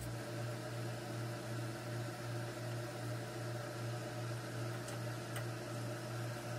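A steady low electrical or fan-like hum with a faint hiss, with a couple of faint ticks near the end.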